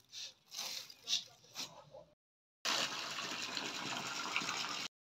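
A few short, rough scraping strokes, then after a brief gap a steady gush of water pouring from a pipe onto a heap of sand and cement, which cuts off suddenly about two seconds later.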